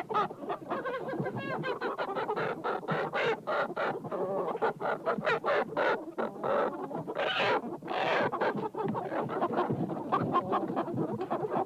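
A flock of domestic chickens clucking, many short calls overlapping without pause.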